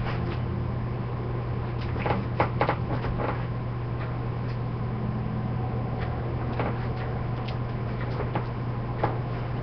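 Steady low electrical-sounding hum with scattered light knocks and clicks, a cluster of them about two to three seconds in and a few single ones later.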